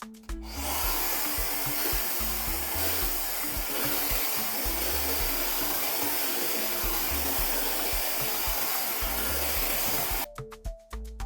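Tymo hair dryer running steadily, a loud even rush of air that switches on about half a second in and cuts off near the end. Background music with a steady beat plays underneath.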